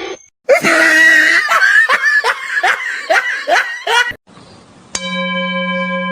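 A person laughing hard in a run of repeated falling 'ha' bursts, about three a second, that stops about four seconds in. Near the end a steady held electronic tone begins.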